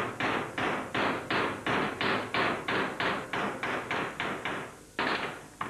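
Steady hammer blows on a steel strip held in a vise, about three a second, bending the strip to shape. The blows slow near the end and finish with two last strikes.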